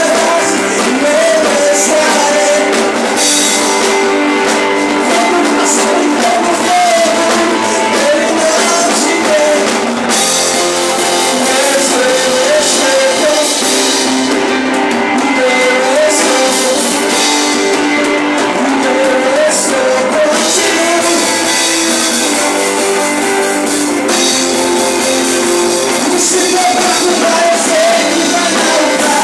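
Live worship band music with a voice singing a wavering melody over the band. The sound is thin, with almost no bass.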